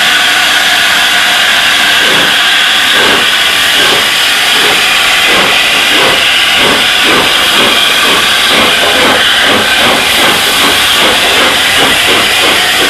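LNER A4 Pacific steam locomotive 60019 Bittern's three-cylinder exhaust beating as it gets under way, the beats starting about two seconds in and quickening from about two a second to four or five a second, over a loud, steady hiss of steam.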